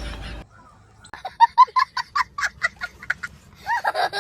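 A rapid string of short, goose-like honks, a dozen or so in about two seconds, starting about a second in; near the end voices or laughter come in.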